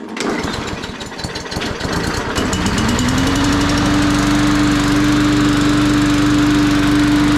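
Push mower's small single-cylinder engine pull-started after priming: it catches at once and runs roughly for about two and a half seconds, then rises in speed and settles into a steady high run.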